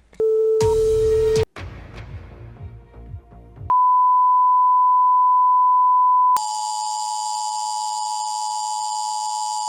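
Electronic broadcast tones. A short steady tone with static sounds for just over a second and fades away; a pure steady test tone then holds for nearly three seconds. It cuts off abruptly into a harsher, buzzier emergency-alert attention tone with hissing high overtones, which runs on.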